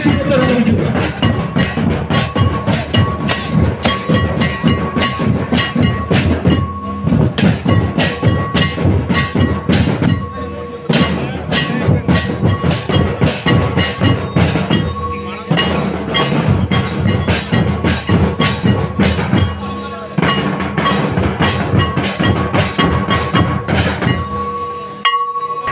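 Santal folk drums beaten in a fast, steady rhythm, with a sustained high tone held over the drumming.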